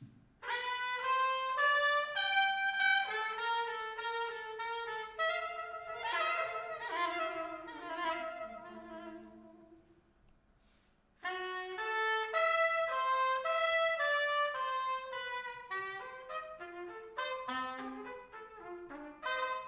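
Soprano saxophone and trumpet playing a slow melody together in two parts. The first phrase ends about halfway through, and after a break of about a second a second phrase begins.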